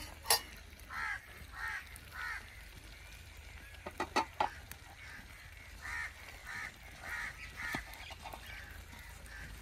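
Geese honking, a short call repeated three times and then five times. A few sharp metallic clinks, one near the start and a quick run of three about four seconds in, are the loudest sounds.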